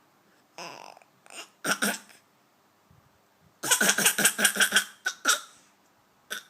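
A young boy coughing and clearing his throat in a put-on deep, man-like way. There are short separate coughs at first, then a run of quick coughs from about three and a half to five seconds in, then a few more single ones.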